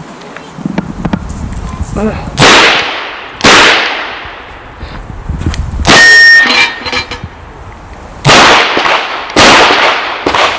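Five shots from a .38 Special Chiappa Rhino revolver, fired about a second apart in pairs with a longer pause in the middle. A steel target rings briefly at the third shot.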